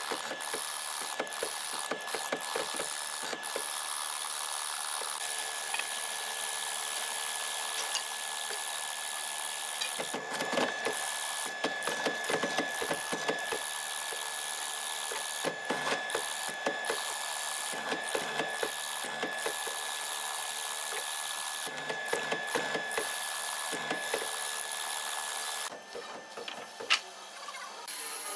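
Hollow-chisel mortiser running with a steady high whine as its square chisel and auger bit are plunged again and again into a wooden beam, each plunge a loud burst of boring and chiselling noise. Near the end the sound drops to a quieter machine hum with a single sharp click.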